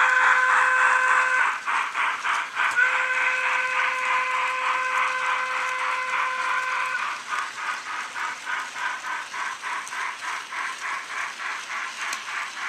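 Steam sound from a model Beyer Garratt locomotive's LokSound decoder, played through its small onboard speaker. A long whistle blast ends about a second in, and a second long blast follows and stops near the middle. Quick, even exhaust chuffs run underneath and carry on alone afterwards.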